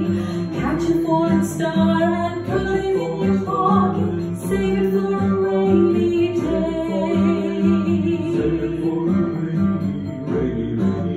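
A woman singing into a microphone over a recorded backing track with guitar and a steady low beat.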